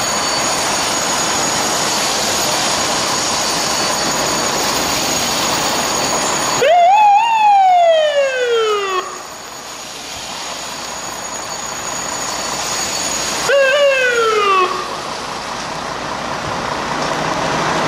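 Fire truck siren giving two short wails, each rising quickly and then falling away in pitch. The first comes about seven seconds in and lasts about two seconds; the second, shorter, comes near the end. Steady background rumble and hiss runs before and between them.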